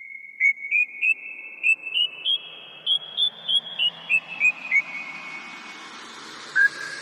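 A whistled tune: a quick run of about fifteen short notes that climbs step by step and then steps back down, followed by one longer held note near the end.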